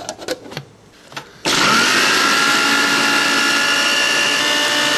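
A few light clicks and knocks of handling the gadget, then a small electric motor switches on about a second and a half in and runs with a loud, steady whir.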